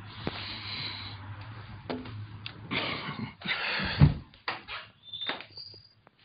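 Roller shutter being let down: its slats rattle as it rolls, then it lands with a heavy thump about four seconds in, followed by a few short clicks and knocks.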